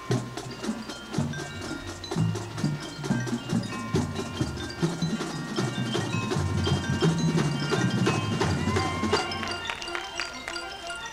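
High school marching band playing its competition field show, in a percussion-heavy passage with rapid drum strikes and ringing mallet keyboards such as glockenspiel and marimba.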